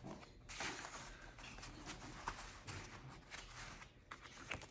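Faint rustling and sliding of cardstock as photo mats are handled and set into place on a paper folio page, with a few light ticks of paper edges.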